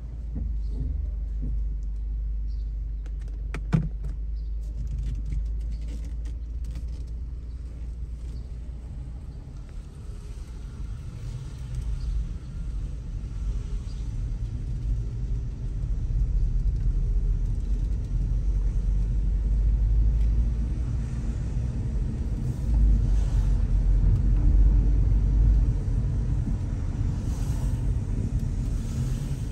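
Low rumble of a car's engine and road noise heard from inside the cabin while driving, swelling louder in the second half. One sharp click comes about four seconds in.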